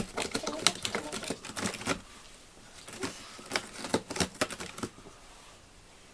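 Cat's claws raking a corrugated cardboard scratcher: quick, dry scratching strokes for about two seconds, a short pause, then a second run of strokes before it stops.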